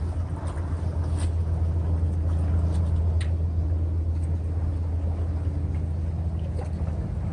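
A steady low engine drone runs throughout, with a few faint clicks over it.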